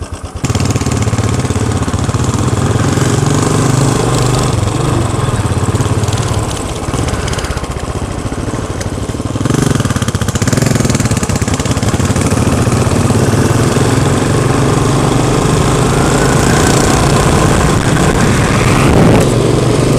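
Royal Enfield Continental GT's 535 cc single-cylinder engine running at road speed, with wind rushing over the helmet-mounted microphone. The sound steps up sharply about half a second in, eases briefly around the middle, then picks up again.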